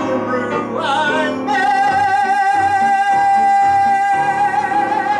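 Male cabaret singer with piano accompaniment: a short sung phrase, then a long, steady, high final note held for about four seconds over repeated piano chords, cutting off at the end.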